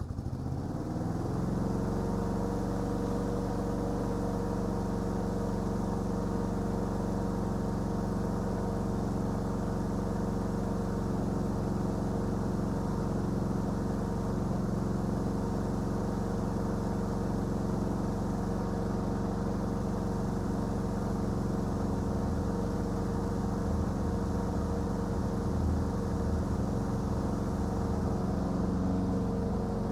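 Lawn mower engine starting, coming up to speed within about a second, then running steadily at constant speed.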